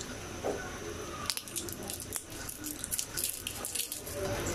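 Fingers picking through dry-roasted jackfruit seeds in a nonstick frying pan, giving an irregular patter of small dry clicks and crackles as the seeds tap the pan and their papery skins flake off, from about a second in to near the end.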